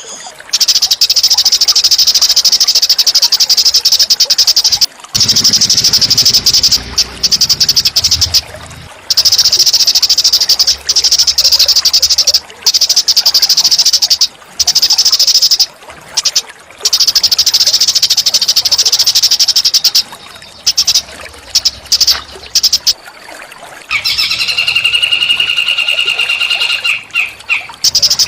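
A small songbird singing loud, high, rapid buzzy trills in long rolling phrases of a few seconds each, broken by short pauses. Near the end a different, lower call with several held tones comes in for a few seconds.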